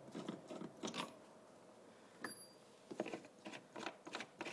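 Faint, scattered small clicks and rattles of hand handling, about one every half second to second, typical of tools or small parts being picked up and moved.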